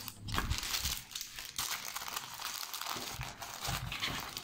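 Diamond-painting canvas and its plastic protective film crinkling and rustling as the canvas is handled and rolled up, with a few soft bumps.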